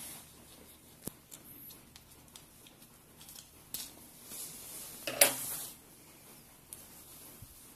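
Plastic ink tubing and a small ink damper being handled and fitted by hand: scattered light clicks and rustles, with one louder sharp click about five seconds in.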